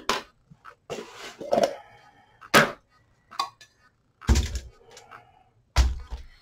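Knocks and thuds of containers being handled and set down on a table. The two loudest come near the end, each with a deep thump, the last as a jar is set down.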